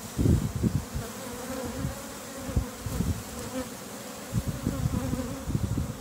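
Swarm of honey bees buzzing close up, a steady, slightly wavering hum. Low rumbles and knocks come in the first second and again from about four seconds in.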